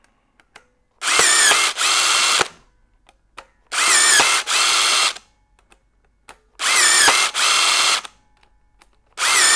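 STANLEY SB25PT-05 battery-powered speed fastening tool placing speed fasteners: its motor runs in four bursts of about a second and a half, roughly every two and a half to three seconds, each with a short break partway through and a brief pitch swoop as the motor starts. The fourth burst begins near the end.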